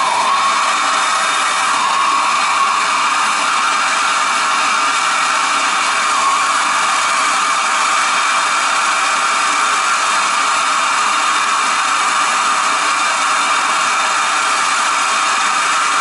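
Plumbing torch flame hissing steadily while copper water pipe fittings are soldered.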